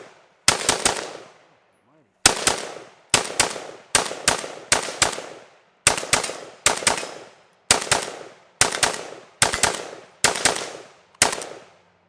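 PSAK-47 GF4 AK-47-pattern rifle in 7.62×39 fired rapidly in semi-automatic. The shots come in quick strings of two or three, about a dozen strings in all with short gaps between them, emptying a magazine.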